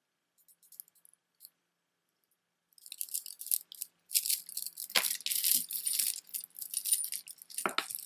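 Strands of stone beads clicking and rattling against one another as the jewelry is handled. A few faint clicks come first, then a continuous clatter with some louder knocks from about three seconds in.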